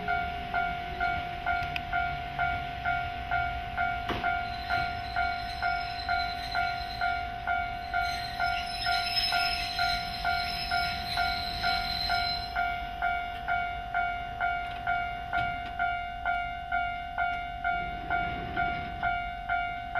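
Level-crossing warning bell ringing steadily, about two strikes a second, while a Nagano Electric Railway 2000 series electric train rolls in and brakes to a stop, with a high brake squeal between about eight and twelve seconds in.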